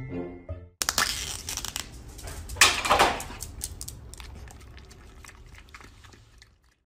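A dog licking yogurt from a small plastic cup and its peeled foil lid: quick wet licks and smacks mixed with crinkling of the foil and plastic. It is loudest about three seconds in and then fades away.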